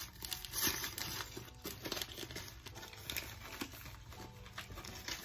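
Packaging rustling and crinkling as it is handled, in irregular bursts with small taps.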